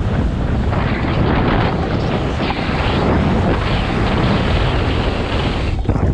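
Loud, steady wind noise buffeting an action camera's microphone as a snowboard runs fast down a groomed piste, mixed with the board's edge scraping over hard-packed snow through a carved turn.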